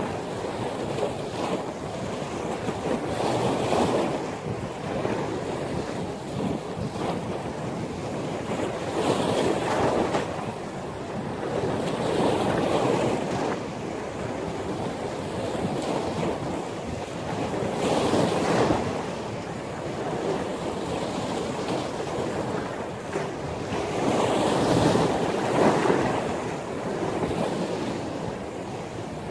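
Ocean surf in a windstorm: a steady wash of water with waves surging louder every few seconds, and wind buffeting the microphone.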